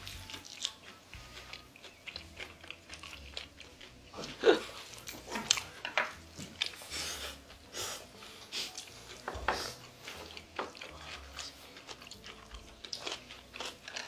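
Close-miked biting and chewing as braised pig's trotter meat and skin are gnawed off the bone, a run of irregular short sharp mouth sounds, the loudest about four and a half seconds in.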